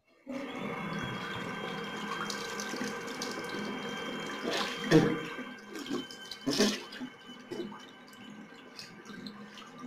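Electric toothbrush switching on about a quarter second in and buzzing steadily while it brushes teeth, with wet scrubbing and a few louder rustles of the brush in the mouth around the middle; the buzz grows quieter near the end.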